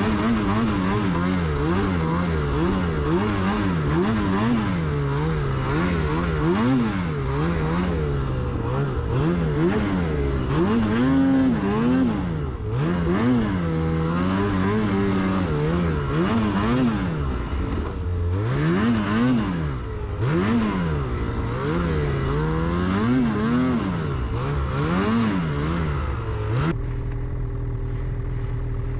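Snowmobile engine revving up and down over and over as the sled is driven through deep powder snow. Near the end it drops suddenly to a steady idle.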